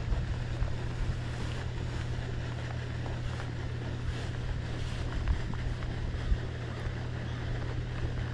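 Fishing boat on the water: a steady low hum under wind and water noise, with wind buffeting the microphone.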